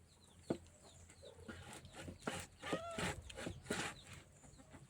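Chickens clucking in a string of short calls, with a single sharp knock about half a second in.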